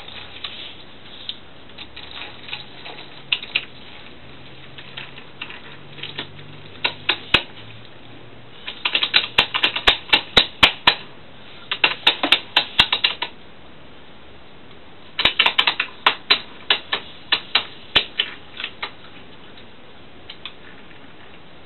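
Sharp plastic clicks from toy trains on a window sill, coming in quick irregular bursts of several clicks a second. Sparse at first, they gather into dense runs about nine, twelve and fifteen seconds in.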